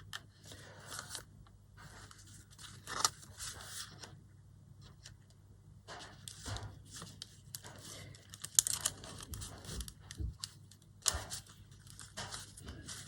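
Paper rustling and scraping in short, irregular bursts with a few sharp clicks, as a cord is poked through the punched holes of a small paper notebook and drawn through.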